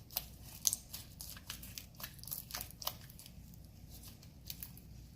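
Sticky slime with foam beads in it being squished and pulled by hand, giving irregular crackling, popping clicks.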